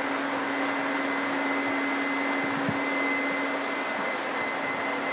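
Steady rushing background noise with a steady low hum that stops about four seconds in, and a soft thump about halfway through.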